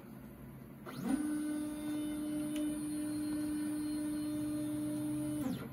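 Stepper motors of a LowRider 3 CNC plasma table whining through one move: the pitch ramps up about a second in, holds steady, then ramps down and stops near the end. The torch does not fire.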